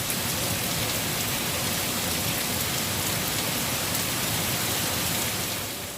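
Steady rain falling: an even hiss that eases slightly near the end.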